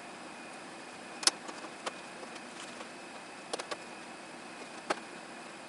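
A few short, sharp clicks and light knocks, the loudest a little over a second in and a close pair later, as parts of the opened TV are handled. They sit over a steady faint hiss with a thin high tone.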